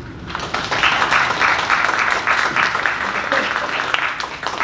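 An audience applauding, the clapping swelling in within the first half second.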